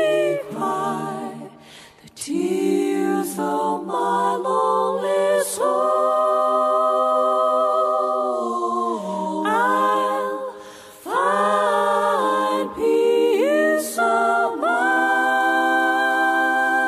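Background music: voices singing a cappella in held chords, with short breaks between phrases.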